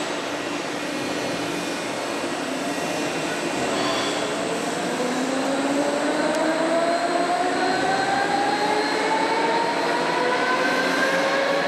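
Hessapp VDM 1000 vertical turning center machining a railway wheel: steady machine noise with a whine that rises slowly in pitch from about four seconds in.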